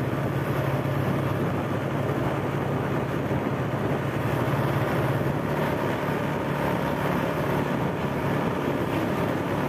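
Steady engine hum of a vehicle travelling at an even cruising speed, mixed with wind and tyre noise on the road.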